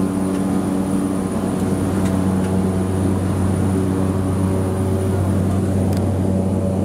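Cabin noise of a Cessna 208B Grand Caravan in cruise: its single Pratt & Whitney PT6A turboprop engine and propeller drone steadily. A thin, high, steady whine sits above the drone.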